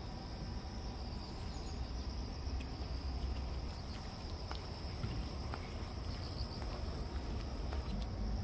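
Insects trilling steadily at a high pitch over a constant low rumble, with a few faint ticks scattered through.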